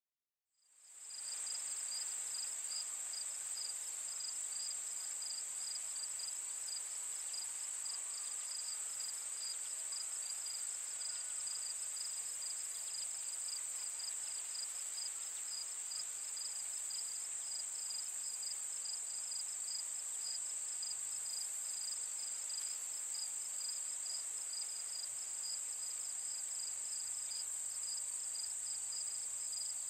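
Steady cricket-like insect chirring: a continuous high trill with a rapid, even pulsing chirp beneath it. It fades in over the first second and then holds unchanged.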